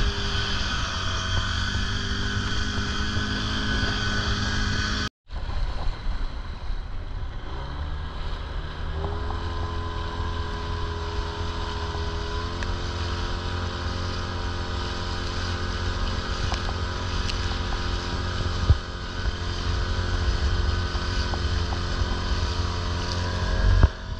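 Motorboat engine running under way, with wind rumbling on the microphone. The sound breaks off for a moment about five seconds in, then the engine note rises over a couple of seconds and holds steady at a higher pitch.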